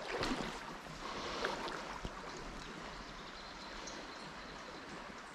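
Steady rush of a shallow river flowing, with a few short knocks in the first two seconds.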